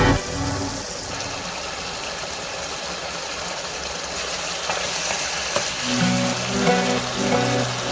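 Chicken sizzling as it fries in a karahi, a steady hiss with a couple of clicks near the middle. Background music comes back in about six seconds in.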